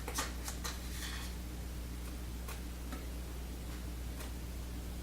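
A few light, irregular clicks and scrapes of a utensil spreading icing onto a baked cinnamon roll, most of them in the first second or so, over a steady low hum.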